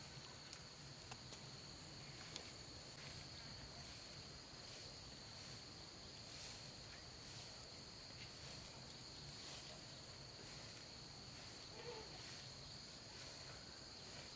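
Straw broom sweeping a concrete floor in repeated soft strokes, over a steady high-pitched insect drone.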